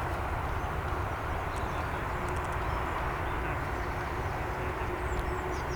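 Jet airliner engines heard at an airport, a steady rushing noise with a faint steady hum.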